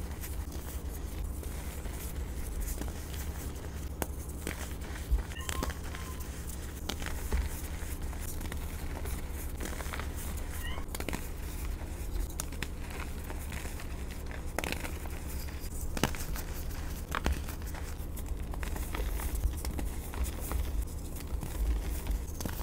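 Soft reformed dyed gym chalk crushed and crumbled by hand, a run of dry crunches and crackles with a few sharper snaps, over a steady low hum.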